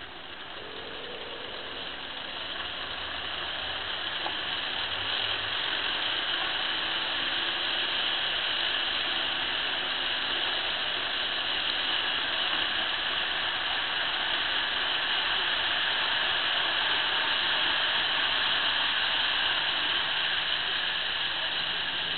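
Model trains running on a layout: a steady whirring rattle of small motors and wheels on track. It grows louder over the first few seconds, then holds steady.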